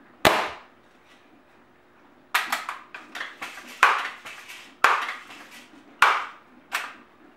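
Crosman Legacy 1000 multi-pump pneumatic air rifle being fired and worked. A single sharp crack comes about a quarter second in. It is followed by a run of clacks and snaps through the middle, then louder strikes about a second apart near the end.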